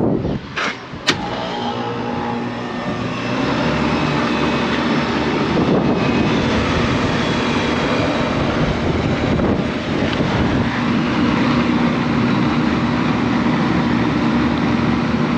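Commercial rooftop HVAC unit running with its compressor and condenser fan: a loud, steady mechanical hum. It has been jumpered on so refrigerant can be charged into it. A couple of sharp clicks come about a second in, and the running noise grows louder about three seconds in.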